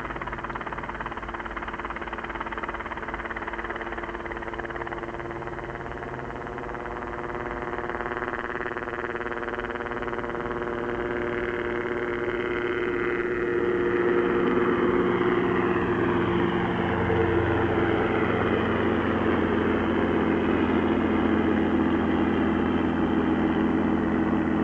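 Robinson R22 helicopter's piston engine and rotor running, with a steady pitched drone that grows louder over the first half and then holds steady.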